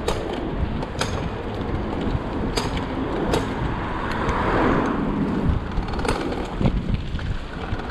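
Electric bicycle rolling along a wet street: steady rumble and hiss from the tyres on the wet road, with several sharp clicks and a brief swell of hiss about halfway through.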